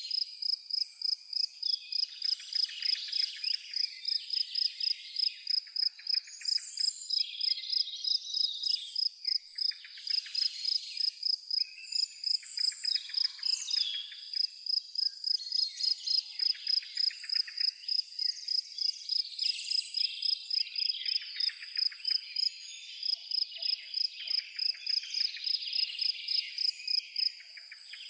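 A cricket chirping steadily, about three high chirps a second, with several birds singing varied songs around it in a forest.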